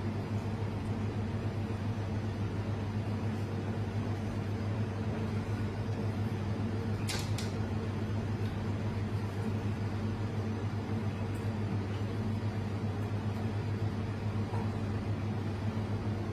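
Steady low machine hum of kitchen equipment, with one brief sharp click about seven seconds in.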